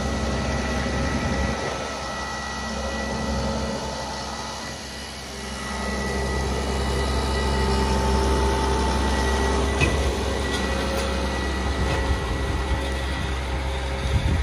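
Gregoire GL8.6 multifunction tractor's Tier 4 Deutz diesel engine running steadily with a low hum as the machine drives, with a few sharp clicks in the second half.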